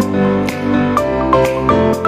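Background music: a quick run of short, bright notes, several a second, over held lower notes.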